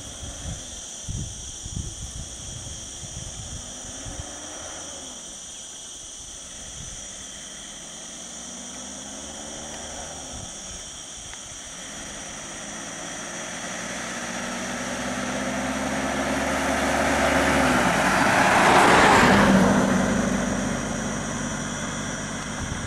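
A motor vehicle on the road passing close by: its engine and tyre noise swell over several seconds to a peak about 19 seconds in, then fade.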